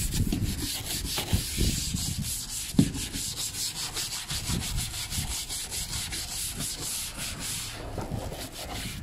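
Scrubbing along a car door's trim strip and window seal by hand: rapid back-and-forth rubbing, several strokes a second. There are low bumps and one sharp knock about three seconds in.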